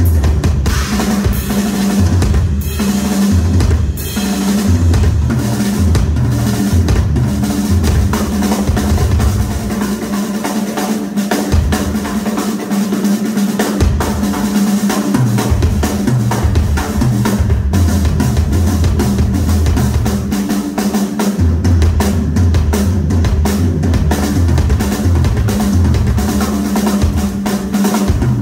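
Solo on a chrome-shelled Ludwig drum kit with two bass drums: dense, fast stick strokes on snare and toms over driving bass drums. The bass drums drop out for a few seconds about ten seconds in, then come back in.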